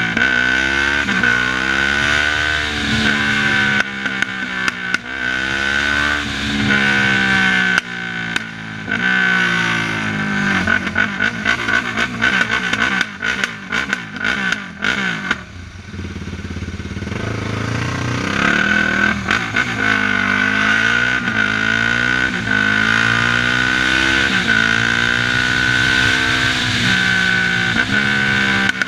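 Yamaha sport quad's single-cylinder four-stroke engine, heard from the rider's position, revving up and easing off again and again as it weaves through traffic, its pitch rising and falling every couple of seconds. About halfway through it drops back briefly before pulling up again.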